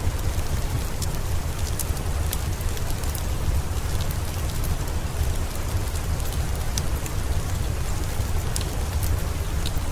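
Steady rain with a deep rumble underneath, sprinkled with scattered faint crackles of a wood fire in a fireplace.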